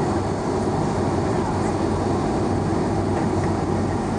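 Jet airliner taxiing after landing, heard from inside the cabin: a steady low rumble and hum from the engines at idle, with no sudden events.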